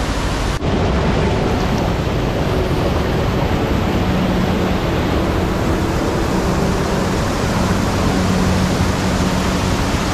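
Loud, steady rush of river water, an even noise with no break except a brief dip about half a second in.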